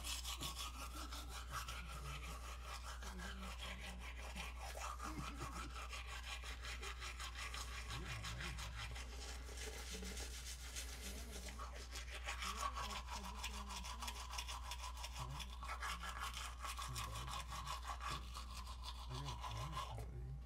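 Manual toothbrush scrubbing teeth in rapid back-and-forth strokes, going on without a break.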